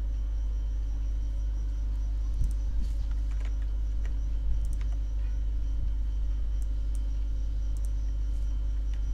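Steady low background hum, with a few faint clicks of a computer mouse scattered through it.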